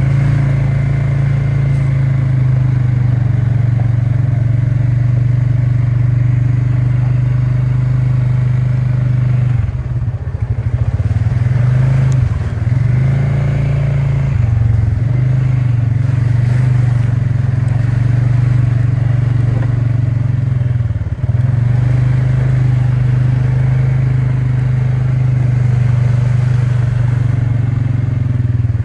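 Polaris ATV engine running steadily under way, with a few brief throttle lifts where the engine note dips before picking up again.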